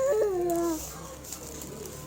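A single high whining vocal call that rises slightly, then slides down in pitch and stops a little under a second in.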